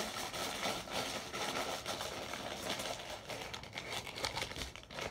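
Plastic packaging crinkling and rustling as it is handled, a dense crackle of many small clicks.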